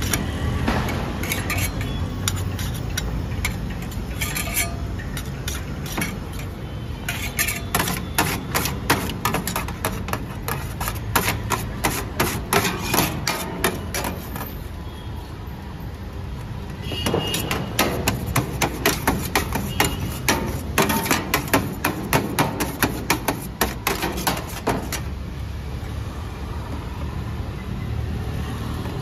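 Metal utensils striking and scraping a steel tray as shawarma chicken is cut and chopped, in two long runs of sharp taps at about four a second, over a steady low hum.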